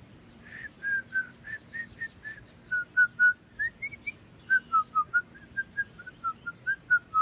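A girl whistling a tune through pursed lips: a string of short notes, about three or four a second, stepping up and down in pitch.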